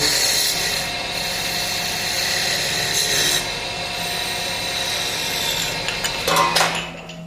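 CNC wood lathe cutting a wooden workpiece: a dense scraping, rasping noise over steady machine whine. About six and a half seconds in, the cutting stops after a short louder burst, leaving a steady low motor hum.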